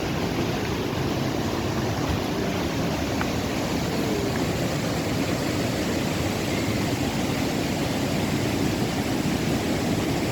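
Marmore Falls waterfall pouring: a loud, steady rush of falling water with no breaks.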